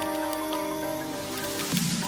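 Background electronic music: a held synth chord drifting slowly down in pitch, with a sliding bass sweep coming in near the end.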